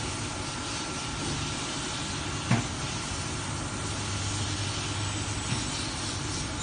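Leather edge-dyeing machine running: a steady hiss with a low hum and a faint steady whine, and one short click about two and a half seconds in.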